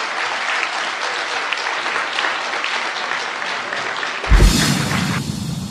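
Audience applauding at the close of a lecture. About four seconds in the applause is cut off and music with a deep bass begins.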